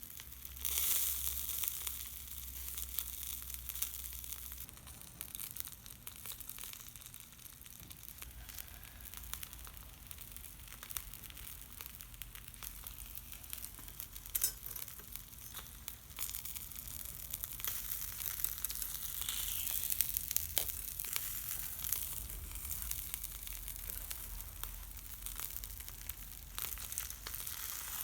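Mackerel grilling over charcoal in a shichirin: a steady sizzle with many small crackles and pops, and one sharper snap about halfway through.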